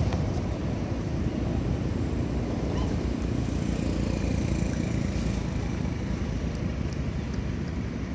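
Steady low rumble of outdoor background noise, with a few faint ticks.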